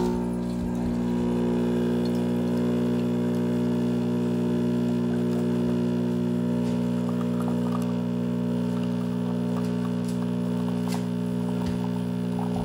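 Home espresso machine's pump humming steadily while it brews a double shot of espresso.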